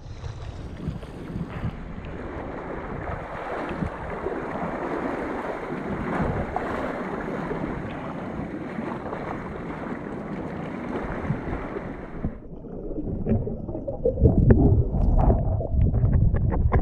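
Choppy seawater sloshing and washing around a GoPro held at the surface among breaking waves, with wind on the microphone. About three-quarters of the way through the sound cuts to a muffled underwater rush with low thumps as the camera goes under.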